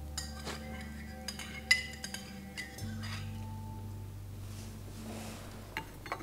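A spoon clinking and scraping against a small bowl while someone eats: a run of light clinks through the first three seconds, the loudest a little under two seconds in, then two more near the end. Underneath is a low, held music score whose notes change about three seconds in.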